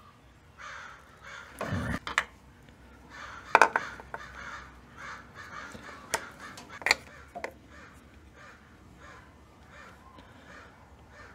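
Sharp metallic clicks and taps of hand tools working on the diesel engine's injector fuel lines, a few of them loud. Behind them a bird caws over and over, about three calls a second.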